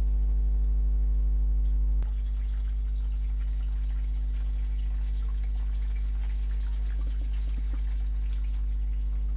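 Steady electrical mains hum with a stack of overtones, dropping a little about two seconds in. Faint scattered clicks from hands working dough over a foil-wrapped pot sit beneath it.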